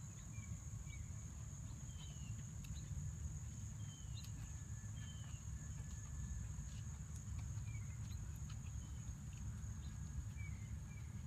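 A steady high insect drone throughout, with scattered short falling bird chirps, over a constant low rumble.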